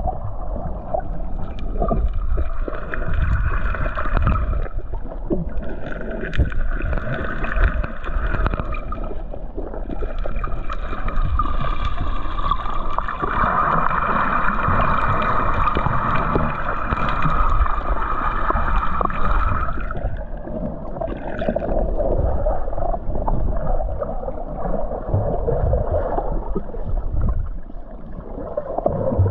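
Underwater noise picked up by a submerged camera: a steady rushing wash of water with some gurgling, and a faint steady high tone running through it.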